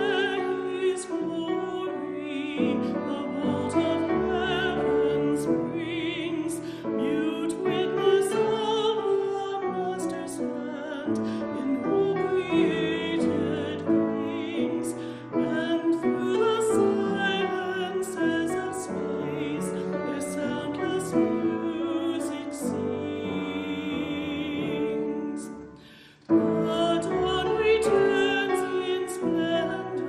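Classical-style solo singing with a strong vibrato over piano accompaniment. The music breaks off briefly about four seconds before the end, then goes on.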